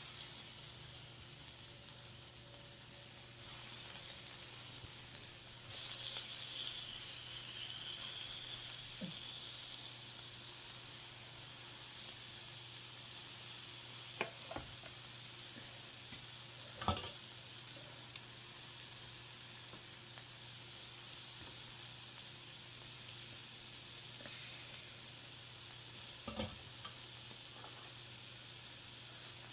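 Meat sizzling on a tabletop grill, a steady hiss that grows louder a few seconds in, with a few sharp clicks scattered through it.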